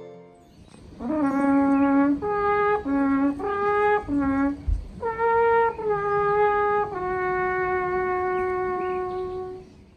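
Alpenhorn being played: a phrase of separate held notes starting about a second in, some short and some longer, ending on one long held note that fades just before the end.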